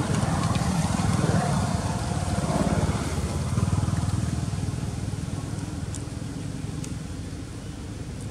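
A motor engine running nearby, its low pulsing rumble loudest over the first few seconds and then fading.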